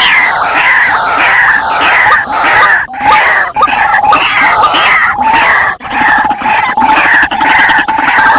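White-breasted waterhen (ruak-ruak) lure call: loud, harsh notes repeated about two to three times a second, without a break.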